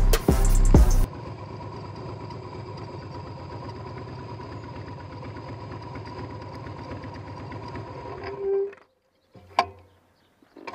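Background music ends about a second in. Then the 2008 Harley-Davidson Night Train's air-cooled V-twin idles steadily at a standstill, swells briefly about eight and a half seconds in, and cuts off suddenly, followed by a click.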